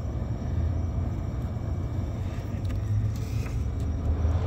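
Steady low rumble and hum of a Sub-Zero wine cooler's refrigeration machinery running, heard close up inside its machine compartment.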